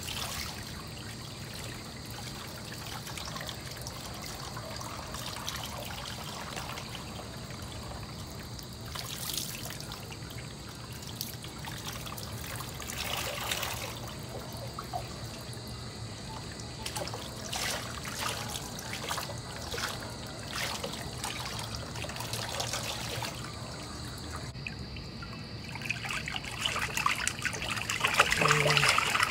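Bath water trickling and being poured over a small dog standing in a plastic basin, with scattered splashes. The splashing gets louder near the end as hands scoop and rub water over the dog.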